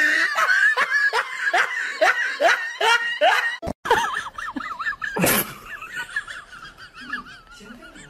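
Laughter: a quick run of short, falling 'ha' sounds about three a second, cut off suddenly after about three and a half seconds, then a brief loud burst and a fainter wavering high-pitched sound.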